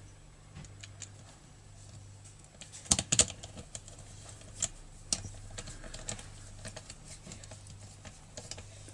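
Scattered small metal clicks and taps of a screwdriver and hand tools on a chainsaw's engine housing as a screw is driven in, with a louder cluster of clicks about three seconds in.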